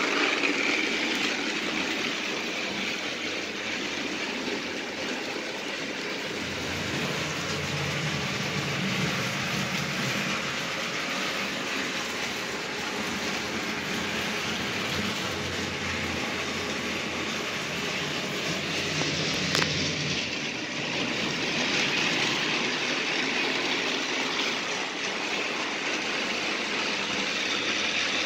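TrackMaster battery-powered toy trains running on plastic track: a steady whir of small electric motors and wheels rolling over the track, with one sharp click about two-thirds of the way through.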